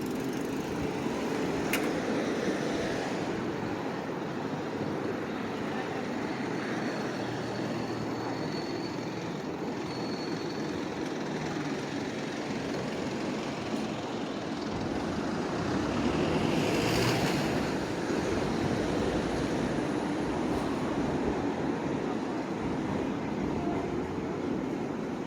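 City street traffic: a steady hum of passing vehicles, with one vehicle passing close and louder about two-thirds of the way through.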